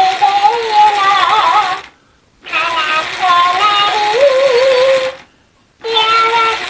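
Mimicking plush dog toy repeating a sung melody in a high-pitched, synthetic-sounding voice. The singing comes in phrases, broken by short pauses about two seconds in and again about five seconds in.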